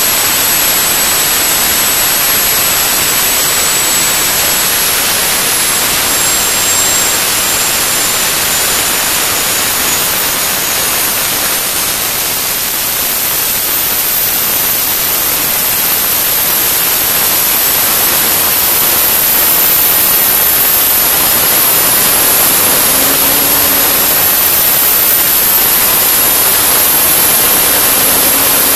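Turbomeca Astazou 3N2 gas turbine running on a test bench: a loud, steady rushing noise with a thin high-pitched whine on top. The whine drifts slightly lower over the first ten seconds or so, and a higher whine comes in about halfway through.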